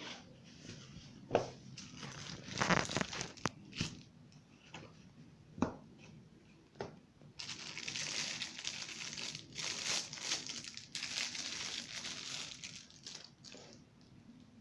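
Cardboard box being opened and handled, with scrapes and a few sharp knocks. Then, from about halfway, clear plastic wrapping crinkles continuously for about six seconds as a knife is unwrapped from it.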